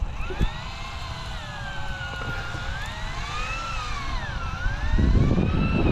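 Electric fishing reel's motor whining as it winds in line, its pitch sliding slowly up and down with the load, on a battery that is thought to be running low. A low rumble underneath gets louder near the end.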